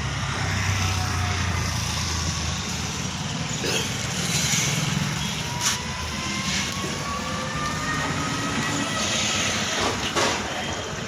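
Heavy-duty 18-inch plastic grinder running loud and steady, its blades chewing plastic, with a faint whine that slowly rises in pitch and several sharp cracks as pieces break.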